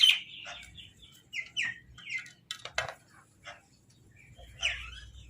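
Crows cawing: a run of short, harsh calls, loudest in the first moment, then scattered single calls with gaps, and one more call near the end.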